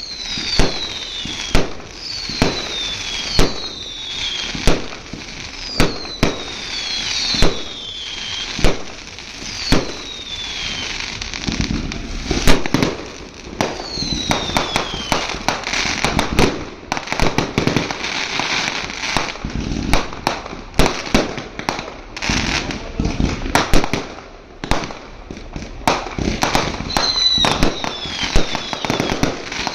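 Fireworks going off: sharp bangs about once a second, each with a whistle that falls in pitch, giving way in the middle to a denser stretch of rapid crackling bangs, then more whistles and bangs near the end.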